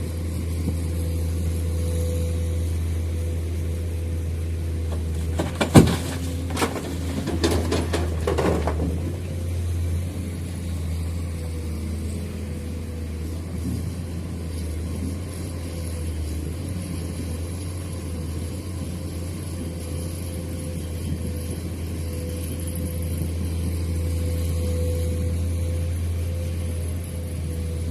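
A heavy construction vehicle's engine running steadily with a low rumble. About six seconds in there is a sharp bang, followed by a few more knocks and clanks over the next two seconds.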